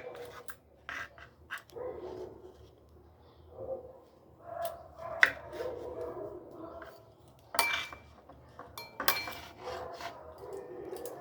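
Kitchen clatter: scattered knocks and clinks of utensils and dishes, several sharp ones standing out. Between them come short mid-pitched, voice-like sounds.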